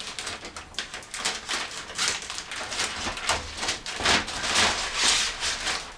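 Thin plastic protective film being peeled off an acrylic shower base, crinkling and crackling unevenly.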